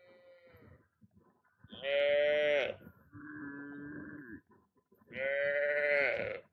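Farm animals bleating in the open. A faint call comes at the start, then three drawn-out calls of about a second each; the middle call is lower and quieter than the other two.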